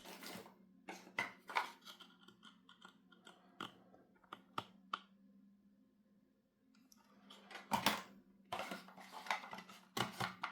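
Irregular clicks, taps and rustling of headphone cables and their metal plugs being handled, in two clusters, with a pause in the middle, over a faint steady hum.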